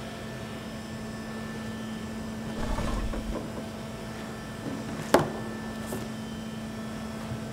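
Steady low room hum, with a brief rustle of movement about two and a half seconds in, then a single sharp knock of a hard object set down on a desk a little after five seconds and a faint tick near the end.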